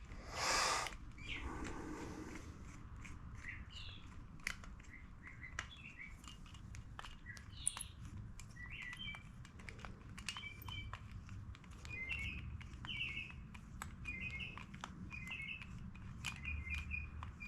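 Small birds chirping in short, quickly repeated phrases, more often in the second half. Faint scattered clicks throughout, and a brief hiss just after the start.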